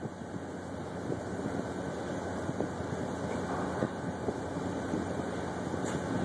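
Freight train rolling slowly past: a steady low rumble with a faint hum underneath and a few light clicks.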